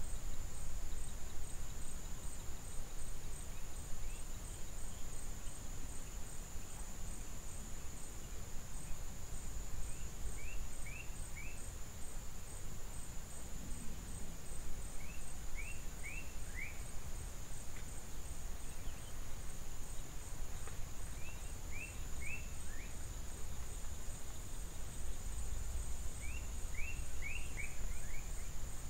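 Outdoor natural ambience: a steady, high insect drone over a low rumble, with short runs of three to five quick falling chirps every five seconds or so.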